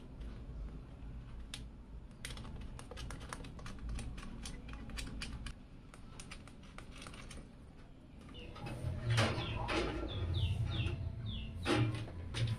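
Small motherboard screws being driven in: a run of light, rapid clicks. About two-thirds of the way through come louder knocks and rattles as a radiator assembly is handled against a metal PC case, with short repeated bird chirps over the last few seconds.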